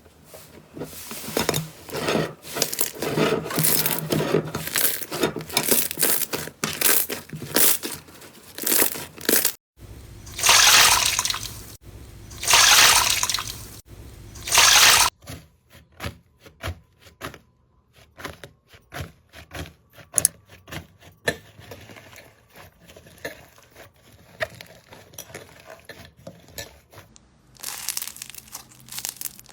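Slime being squished, poked and stretched by hand, making wet, sticky popping and crackling. Dense crackling at first, then three loud squelching swells, then sparse single pops.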